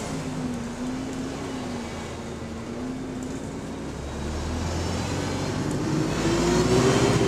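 MMC double-decker bus running on the move, heard from inside: a low drivetrain rumble with a whine that wavers at one pitch, then rises and grows louder as the bus picks up speed toward the end.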